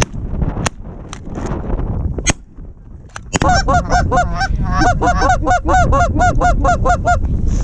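Canada goose honking: a fast, even run of about five honks a second that starts a little over three seconds in and stops shortly before the end. A few sharp clicks come before it.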